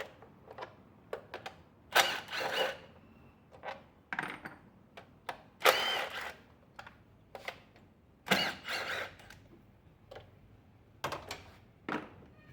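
Handheld power gun run in three short whining bursts, about three seconds apart, backing out the bolts of the engine's plastic covers. Small clicks and knocks of sockets and parts sound between the bursts.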